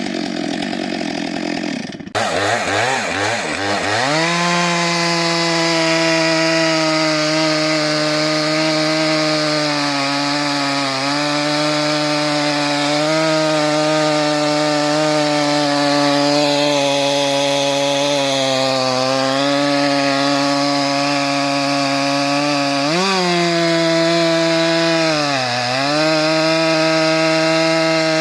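Stihl MS 462 chainsaw with a 90 cm bar cutting through a dry log at full throttle. About two seconds in the sound breaks off abruptly and the engine climbs back up to a steady high pitch. Its pitch sags now and then as the chain bogs in the wood, most deeply near the end.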